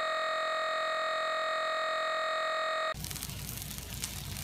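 A steady electronic tone of several pitches is held for about three seconds and cuts off abruptly. Sausages then sizzle and crackle as they fry in a pan.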